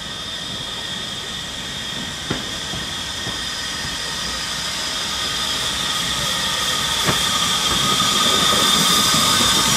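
LB&SCR E4 class 0-6-2 tank locomotive hissing steam as it runs light towards the listener, getting steadily louder as it nears. Two sharp clicks are heard, about two seconds in and about seven seconds in.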